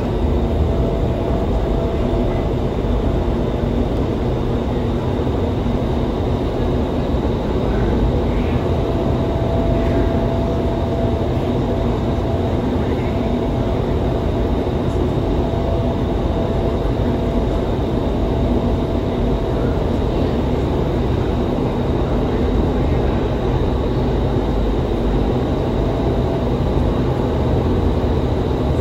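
Indoor skydiving wind tunnel running: the fans and rushing air make a steady, loud rumble with a faint steady hum riding on it, heard from outside the glass flight chamber.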